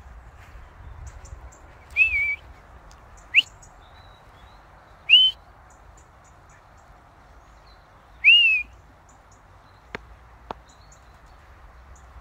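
A person whistling to call a pet parrot: four short, loud whistles, each sweeping up in pitch, spread over about six seconds. Faint chirps of small birds run underneath, and two small clicks come near the end.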